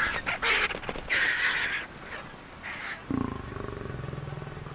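Lion snarling at vultures over a kill: harsh noisy snarls in the first two seconds, then a low, rumbling growl from about three seconds in.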